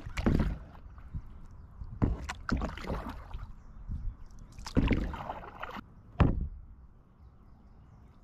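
Canoe paddle strokes: the paddle dipping and pulling through the water in several splashing surges a second or two apart, quieter near the end.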